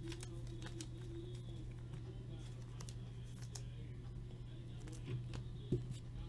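Faint light clicks and plastic rustling as a trading card is handled and slipped into a soft plastic sleeve, with a single soft tap near the end as it is set down, over a steady low hum.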